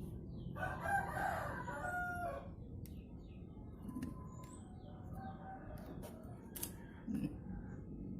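A rooster crowing: one crow of about two seconds near the start, then a fainter call around the middle, over a steady low background rumble with a few sharp clicks.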